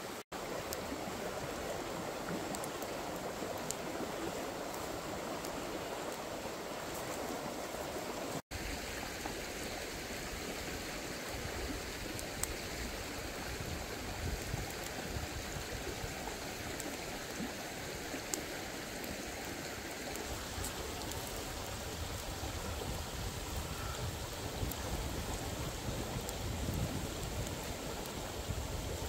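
A stream's water running steadily, an even rushing noise that grows heavier and lower after a cut about eight seconds in, with scattered faint clicks.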